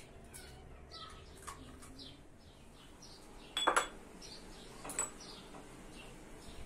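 Small birds chirping over and over in short falling calls, while a metal spoon clatters against a bowl a little over halfway through, followed about a second later by a single sharp clink.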